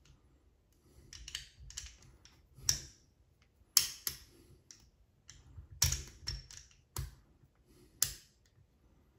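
Sharp, irregular clicks and light knocks of Glock pistol parts being handled as the recoil spring assembly is fitted into the slide over the barrel, about ten in all, the loudest about four, six and eight seconds in.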